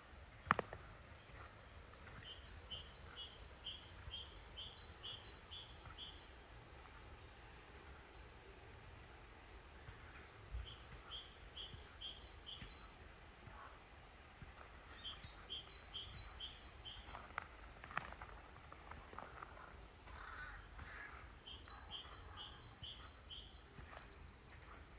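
A songbird singing in winter woodland: phrases of quick repeated two-part high notes, about three a second, come back several times, over a faint steady outdoor background. A sharp knock sounds about half a second in, and a couple more come later.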